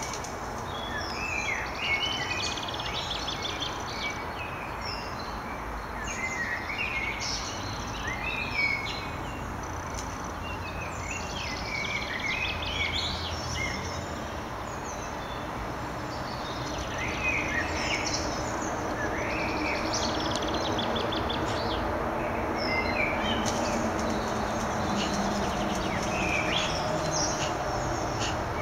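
Small songbirds chirping and trilling in many short, high calls over a steady background hiss. A low hum joins about two-thirds of the way through.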